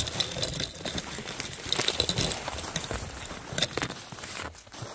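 Footsteps crunching through snow at an uneven pace, with bare twigs brushing against the walker.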